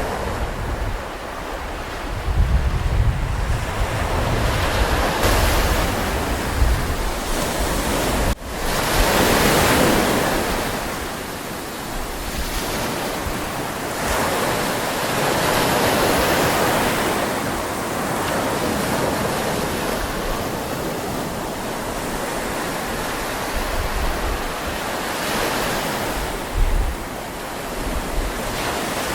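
Sea waves washing onto a shore, surging and easing every few seconds, with wind gusting across the microphone. The sound breaks off for an instant about eight seconds in.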